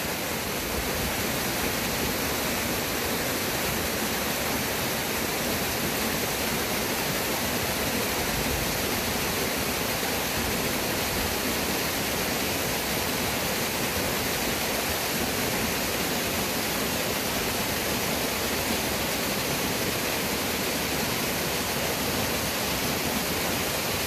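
Waterfall rushing steadily down a narrow rock chute, an even, unbroken wash of falling water.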